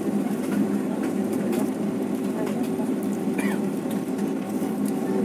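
Steady drone of a jet airliner's engines and cabin air heard inside the passenger cabin while the plane taxis, with faint passenger voices.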